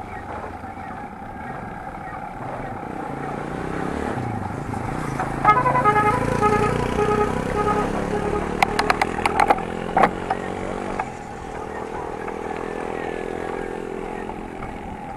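A motorcycle passes the riders, sounding a string of short horn beeps, its engine swelling and then fading. A quick clatter of sharp clicks comes near the middle, over steady road and wind noise.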